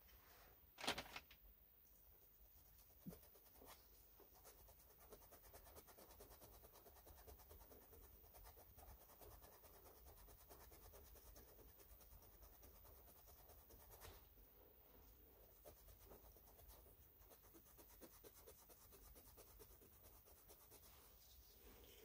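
Faint scrubbing of a green abrasive pad rubbed back and forth over the rust-dissolver-treated cast-iron bed of a small lathe, after a brief knock about a second in.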